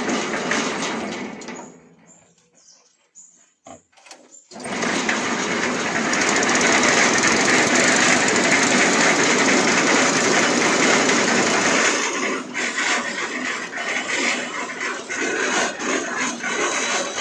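Small Honda petrol engine on a cement mixer being started: a short burst of running that dies away within about two seconds, then it catches about four and a half seconds in and runs very noisily and too fast, driving the mixer drum by V-belt, easing a little from about twelve seconds in.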